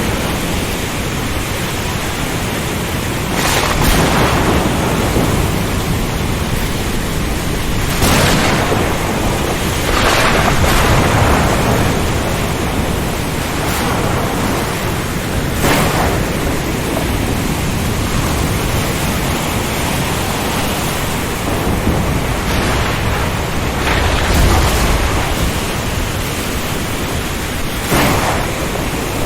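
Storm ambience: a dense, steady rush of wind and rain, broken by sudden thunder crashes about every few seconds, six or so in all.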